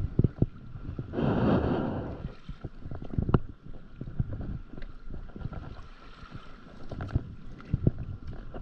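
Stand-up paddleboard paddling: a swishing wash of water from a paddle stroke about a second in, the loudest sound, among scattered knocks and taps, with one sharp knock a little after three seconds.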